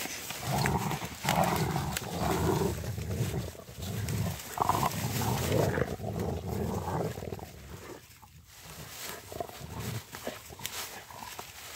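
Rottweiler play-growling in a run of low rumbles while mouthing and tugging a fallen branch. The growls stop about eight seconds in, leaving scattered sharp cracks of twigs.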